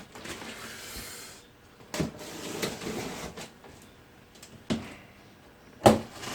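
Cardboard packaging of a barbecue being handled and pulled open: rustling and scraping, then three sharp knocks, the loudest near the end.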